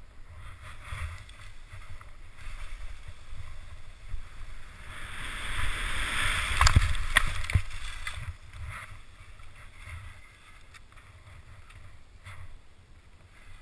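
Skis sliding and scraping through snow on a steep descent, louder from about five to eight seconds in, with a few sharp knocks. Wind rumbles on the microphone underneath.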